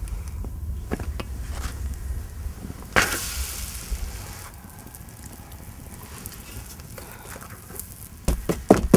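Small wood fire crackling under a domed metal griddle (saj) as thin flatbread dough is stretched and laid on it to bake. There is a brief hiss about three seconds in and a cluster of sharper snaps near the end.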